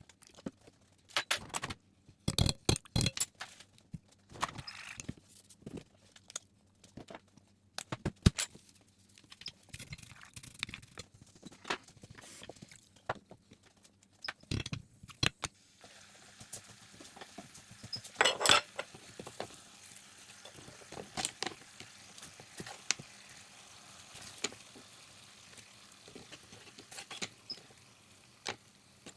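Kitchen utensils and dishes being handled: irregular clinks, taps and knocks of metal and crockery. About halfway through, a steady faint hiss starts underneath.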